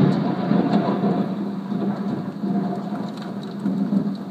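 Thunder rumbling and slowly dying away over heavy rain falling on a street and trees, with a few small ticks of drops.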